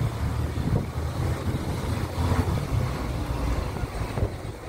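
Wind buffeting the microphone on the open top deck of a moving bus, over the low rumble of the bus engine.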